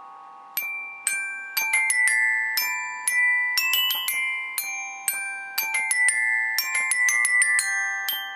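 Solenoid-driven robotic glockenspiel playing a tune, its solenoid plungers striking the metal bars. A ringing note dies away at first; about half a second in the tune starts again, with a clicky strike and a ringing note roughly every half second, some notes in quick runs.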